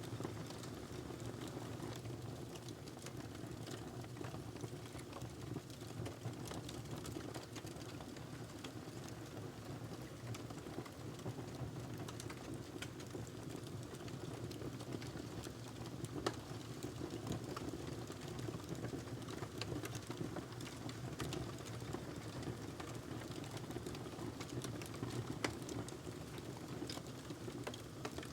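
Wood fire crackling in a fireplace: a steady low rush of flame under many small sharp pops and snaps. A couple of louder pops come about halfway through and near the end.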